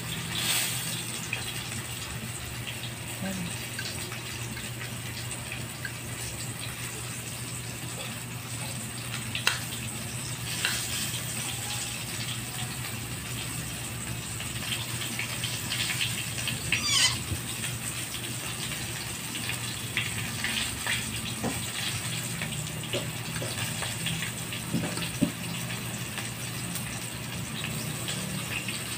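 Flour-dredged fish pieces frying in hot oil in a wok: a steady sizzle, with a few sharp clinks of a fork and spatula against the metal wok and flour bowl.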